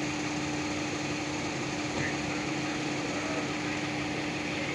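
A steady motor hum holding one constant pitch, under an even hiss.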